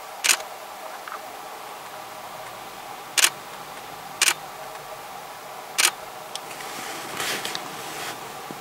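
Camera shutter released four times at uneven intervals, each a short sharp click, followed near the end by a brief rustling noise.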